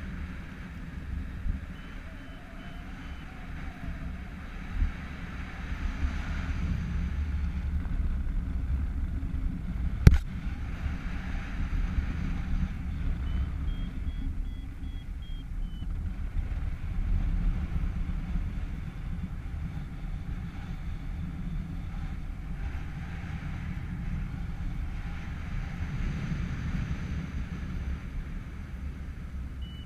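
Wind buffeting the microphone of a paraglider's helmet or harness camera in flight, a steady low rumble and rush. A single sharp click about ten seconds in.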